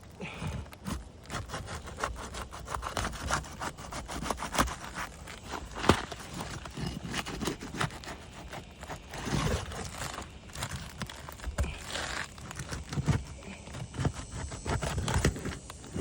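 Asphalt roof shingle being lifted and pried loose from the shingle below, with irregular scraping, crackling and clicks as its sealant strip breaks free and the sharpest snap about six seconds in. This is a repairability test: the sealant tearing away the shingle's mat (mat transfer) shows that the shingles can't be resealed.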